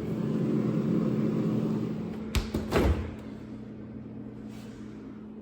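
A rustling rush for about two seconds, then a sharp knock and a heavier thump about half a second apart, like a door being shut, over a steady low hum.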